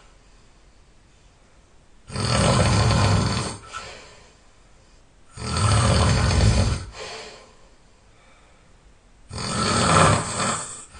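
A person snoring loudly: three long snores, each about a second and a half, coming roughly every three and a half seconds, with quiet breathing gaps between them.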